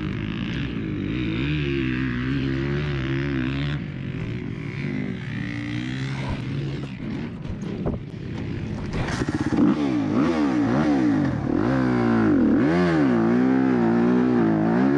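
Motocross bike engine running, fairly steady for the first few seconds, then revving up and down again and again as the bike is ridden through mud, its pitch rising and falling with the throttle from about nine seconds in.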